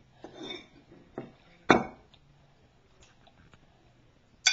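Two sharp knocks on a wooden dinner table, about three seconds apart, the first the louder, with a few faint ticks between.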